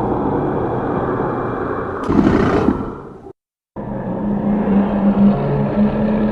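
Two separate rumbling sound effects with a short silent gap between them. The first swells briefly and fades out. The second starts abruptly and carries a steady low hum.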